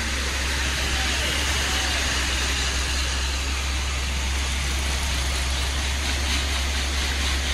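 Diesel engine of a Hino 500 tanker truck running steadily at low revs as the truck creeps slowly past, with a constant low rumble under a steady hiss.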